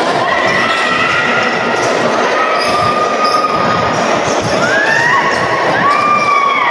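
Basketball game in a gym: a ball bouncing on the court amid steady crowd noise, with drawn-out shouts rising near the end.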